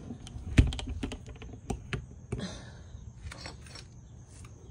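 Clicks and knocks of a plastic RV luggage door being pushed shut and handled, with a few short scrapes; the loudest knock comes about half a second in.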